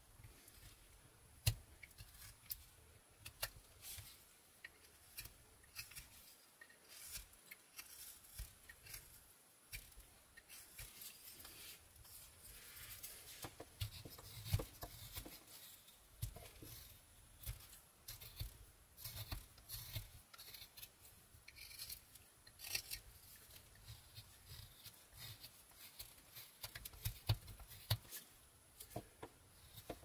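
Mora 122 carving knife paring thin shavings from a basswood blank: an irregular run of crisp clicks and short scraping cuts, one stroke after another.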